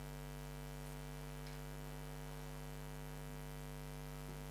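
Steady electrical mains hum, a low drone with a ladder of higher overtones, unchanging throughout.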